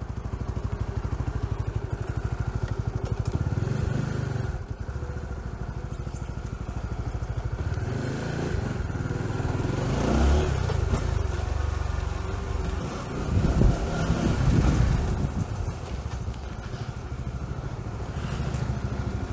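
Honda GTR150 motorcycle's single-cylinder engine running at low road speed, its rapid low pulsing steady throughout. It gets louder for a moment about halfway through and again a few seconds later.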